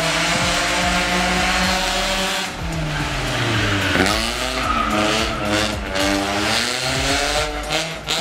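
Car engine revving hard up and down as its tyres spin and squeal in a smoky burnout. About four seconds in, the revs drop sharply and then climb again.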